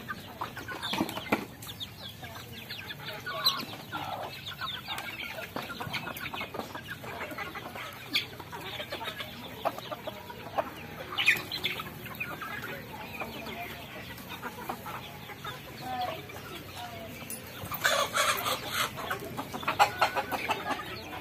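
A flock of chickens clucking and calling while they feed, many birds at once, with a louder flurry of calls near the end.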